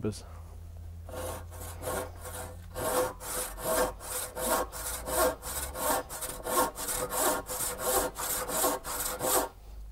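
Hand saw ripping along a rough timber plank in steady back-and-forth strokes, about two to three a second, light at first and stronger from about three seconds in, using long strokes along much of the tooth line.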